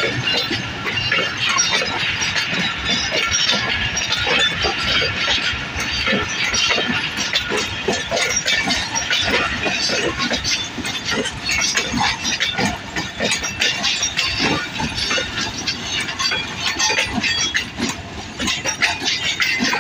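Passenger train coaches rolling past, their wheels clattering over rail joints and points: a steady running noise with many clicks and knocks.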